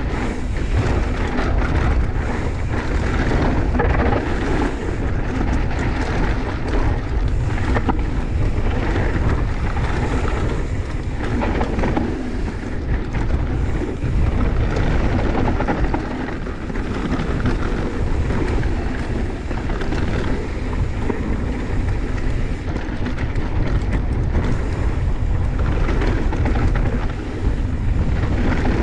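Mountain bike descending a dry dirt singletrack at speed: wind buffeting the camera microphone, mixed with tyres rolling and skittering over dirt and loose stones. It is a steady, dense rush throughout.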